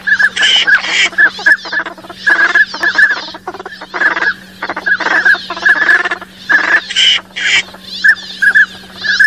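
A flock of northern pintails calling continuously: short whistled notes repeated in quick runs, mixed with harsher raspy calls. A steady low hum runs underneath.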